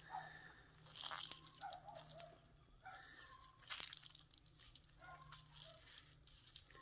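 Soaked bobcat pelt being twisted and wrung out by hand: faint, irregular wet crunching and squishing of the fur and skin, strongest about a second in and again just before four seconds.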